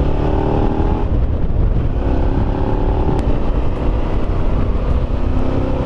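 Motorcycle engine running under way, its pitch rising slightly in the first second, easing off about a second in, then pulling again, over a heavy wind rumble on the microphone.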